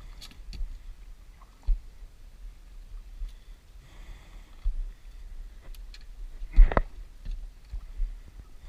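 Scattered knocks and thumps on the deck of a small fishing boat, the loudest a sharp thump a little under seven seconds in, over a low rumble of wind on the microphone.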